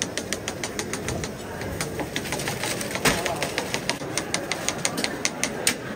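Rapid, uneven clicking and tapping, several times a second, of a metal pick on a hot cast-metal cake mould as small cakes are flipped out onto a steel tray, with one louder knock about three seconds in.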